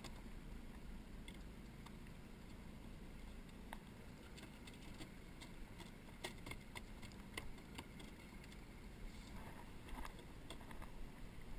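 Scattered clicks and knocks of fishing gear handled in a small open fishing boat, several in quick succession around the middle and a few more near the end, over a steady low rumble of water and wind around the boat.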